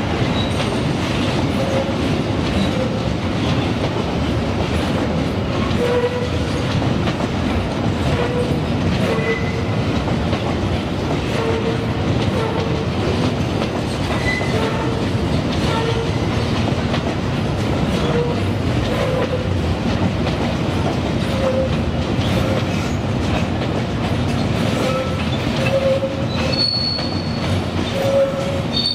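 A freight train of empty steel gondola wagons rolling past on the rails, with a steady rumble and rattle. The wheels give short squeals against the rails every second or two, with a higher squeal near the end.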